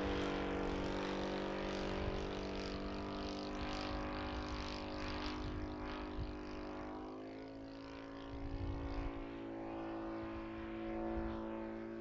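Engine of a radio-controlled Ju 87 Stuka scale model plane droning steadily at constant throttle as it flies past overhead. The sound fades a little about two-thirds of the way through, then swells again near the end.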